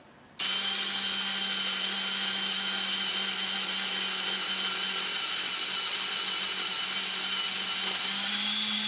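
35 mm film SLR's built-in motor rewinding the film into its cassette: a steady whirring whine that starts about half a second in and rises slightly in pitch near the end.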